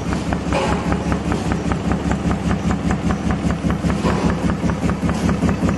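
Hole-punching (perforating) machine for EVA shoe insole sheets running, its punching strokes knocking in an even rhythm of about five a second over the steady hum of its motor.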